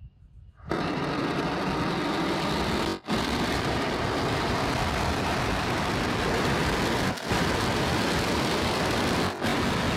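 Starship prototype's Raptor rocket engines relighting and firing for the landing flip and landing burn: a loud, steady rushing noise that starts abruptly about a second in and cuts out briefly three times.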